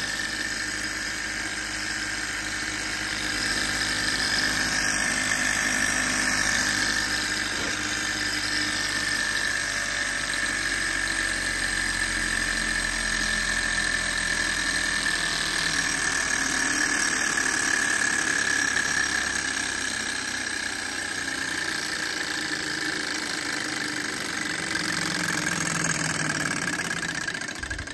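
Enjomor horizontal-flywheel hot-air Stirling engine running fast on its alcohol burner: a loud, steady mechanical buzz with a high whine held at one pitch.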